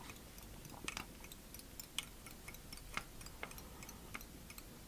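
Faint, sharp clicks and ticks, roughly one a second with a few softer ones between, from tying thread and bobbin being handled at a fly-tying vise.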